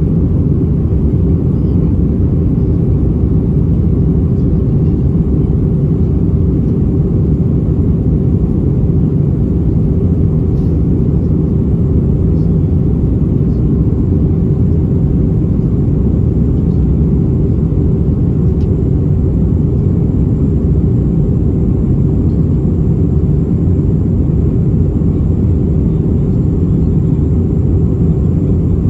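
Steady cabin rumble inside an Airbus A320-232 in flight: engine and airflow noise from its IAE V2500 engines and the fuselage, heard from a window seat, holding one even level with no change in pitch. A few faint clicks sit over it.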